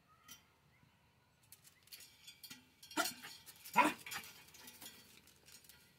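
A dog jumping up against a metal railing gate at a rooster perched on it, with light scrabbling clicks and two short, sharp dog cries about three and four seconds in.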